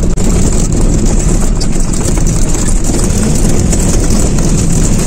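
Loud, steady engine and road noise of a moving bus, heard from on board.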